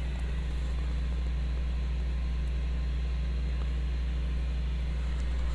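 Steady low hum of a Ninja indoor smart grill running while it preheats.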